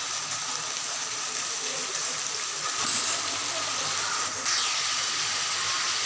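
Vegetables sizzling in hot oil in an aluminium kadai: a steady hiss, with a single knock about three seconds in.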